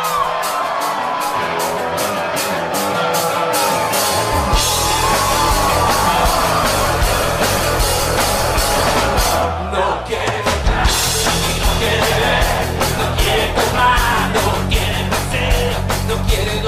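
Music with a steady drum beat; the bass and full drums come in about four and a half seconds in, with a short break near ten seconds.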